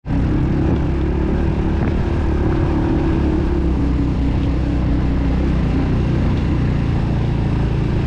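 Motorcycle engine running at a steady pace while riding on a dirt track, mixed with a constant low rumble of wind and road noise.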